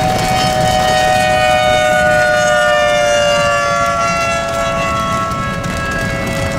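Outdoor civil-defense warning siren sounding during a tornado: a loud, steady two-tone wail that slowly falls in pitch. The low rumble of a car driving runs underneath.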